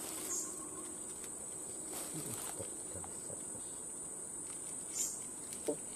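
Insects calling in one steady, unbroken high-pitched tone, with a few faint ticks over it.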